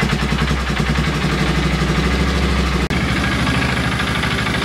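Polaris Ranger 6x6's single-cylinder engine running steadily after a top-end cleanup, new head gasket and cleaned carburettor, following two years of sitting. There is a brief dropout about three seconds in, then it carries on running.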